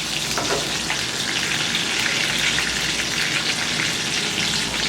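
Chicken fat frying in a hot pan, sizzling and crackling steadily in its own rendered oil.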